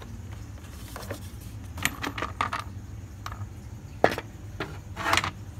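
A scatter of sharp hard-plastic clicks and clatters as the engine's plastic air box cover is lifted off and a cordless tool is handled, the loudest click about four seconds in and a short rattling clatter near the end.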